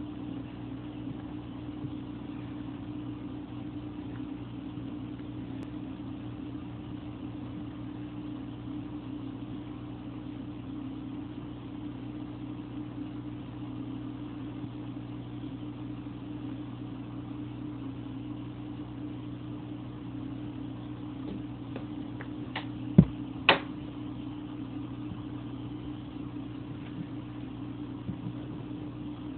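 Steady low electrical hum of a running aquarium pump. About 23 seconds in come two sharp knocks, half a second apart.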